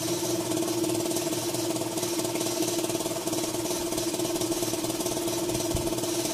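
A machine running steadily: a constant pitched hum that does not change.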